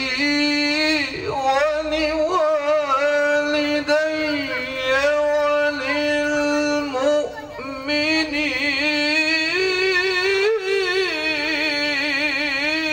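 A man chanting the Qur'an in the melodic tilawah style, amplified through a handheld microphone. He sings long held notes with wavering ornaments, and the line climbs higher about eight seconds in before settling back.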